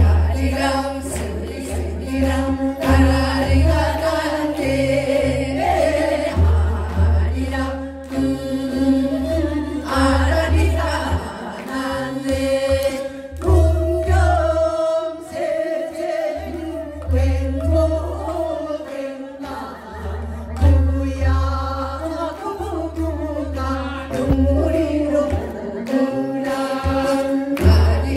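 A group of women singing Korean folk songs (minyo) together into microphones, over amplified accompaniment with a pulsing bass.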